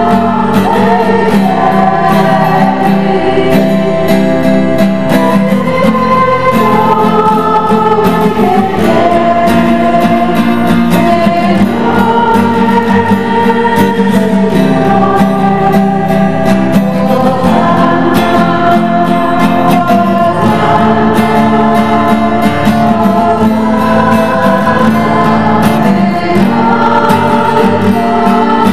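Background choir music: voices singing slow, long-held notes over a steady accompaniment.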